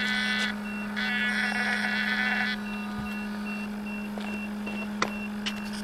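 Onboard electronics of a parked RC model jet: a steady electrical hum with a short high beep repeating about two to three times a second. A higher, steady electronic whine sounds over it until about half a second in and again from one to two and a half seconds in, and there is a sharp click about five seconds in.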